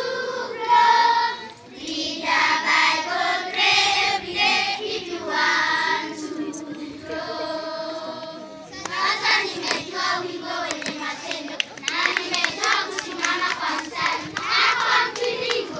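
A group of girls singing together as a choir. About halfway through they hold one long note, then go into quicker singing.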